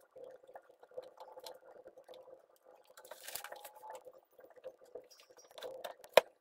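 Ordinary pliers crimping a metal spade terminal onto a wire by hand: small irregular clicks and rustles of metal and plastic being handled, a short scrape about halfway through, and one sharp click near the end.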